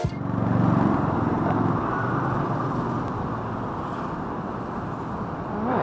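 Street traffic: a motor vehicle's engine hum, loudest in the first second or two, fading into a steady wash of road noise.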